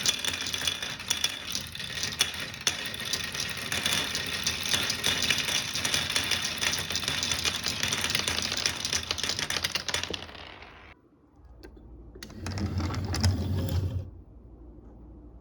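Many marbles rolling and clattering down a toy marble run, a dense rapid stream of clicks that stops about ten seconds in. About twelve seconds in comes a short, lower rattling rumble, then only a faint hum.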